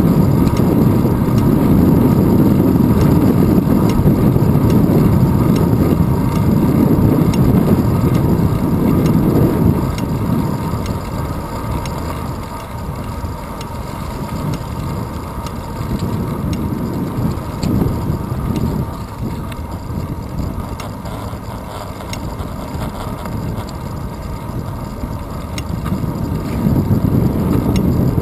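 Low rumble of wind buffeting a handlebar-mounted GoPro Hero 2 and the bicycle's tyres rolling on asphalt while riding. It is strong at first, eases for a long stretch in the middle, and builds again near the end.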